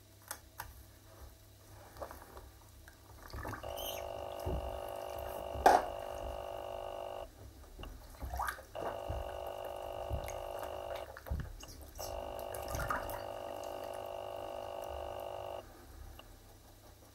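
Waterlogged sneakers stepping and squelching in shallow bathtub water, with splashes and one sharp slap about five and a half seconds in. A steady pitched hum comes on three times, for a few seconds each.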